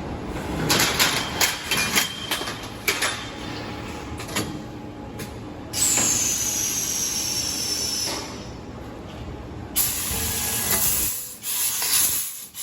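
Automatic tube loader of a CNC laser tube cutter feeding stock into the machine. Metal clanks and knocks come in the first few seconds, then a high whine that slides down in pitch from about six seconds in. A loud hiss starts near the end.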